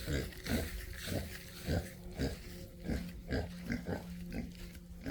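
Pigs grunting in a quick series, about two short grunts a second, hungry and waiting to be fed.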